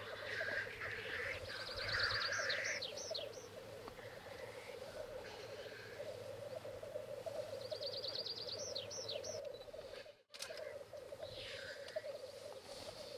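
Black grouse lekking: the males' continuous bubbling, cooing song (rookooing) runs steadily, with a few hissing calls. Twice another bird's short song of rapid high notes ending in falling whistles rises above it.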